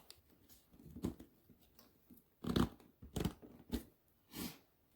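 A handful of short clicks and scrapes from hands and tools working a three-wheeler's carburetor loose, the loudest about two and a half seconds in.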